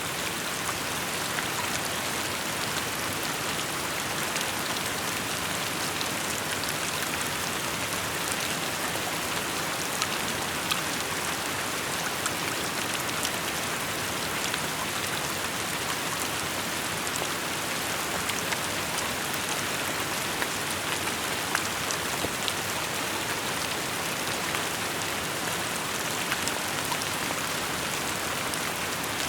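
Steady rainfall: an even hiss of rain with many small drops ticking as they land on surfaces.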